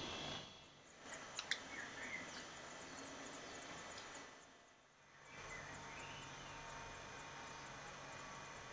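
Black redstart nest: faint, thin high chirps and sharp ticks over a soft hiss, with a run of evenly spaced high ticks in the second half.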